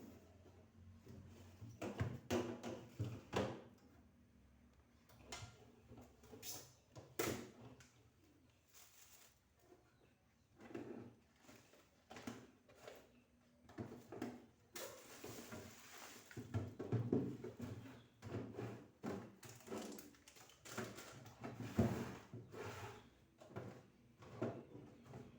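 Scattered knocks, thunks and clatter of refrigerator drawers, shelves and containers being handled during cleaning, at an uneven pace. There is a brief hissy rustle about fifteen seconds in.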